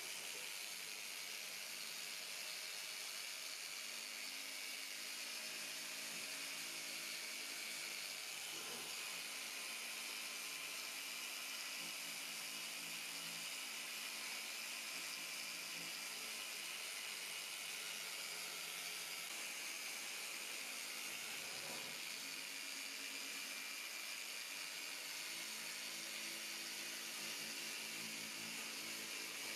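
Electric polisher with a foam pad running against a plastic headlight lens: a steady motor whir with a hiss, its hum wavering briefly twice.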